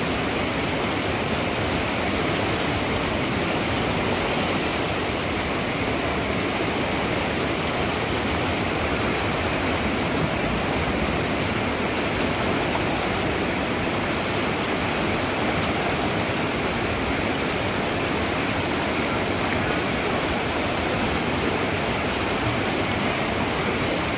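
Whitewater river rapids rushing steadily, an even unbroken noise of churning water.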